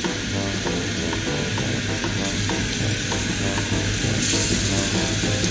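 Turmeric-marinated fish pieces sizzling in hot oil and fried onions in a steel wok, the sizzle growing louder about two seconds in and again about four seconds in as more pieces go in.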